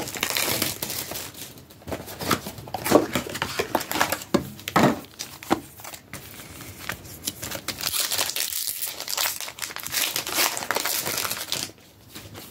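Foil Pokémon card booster pack wrappers being torn open and crinkled by hand: an irregular crackle with sharper rips now and then, dying away shortly before the end.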